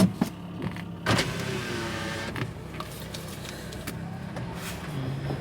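A car heard from inside the cabin: a thump at the start, then about a second in the engine starts and runs on at a steady idle.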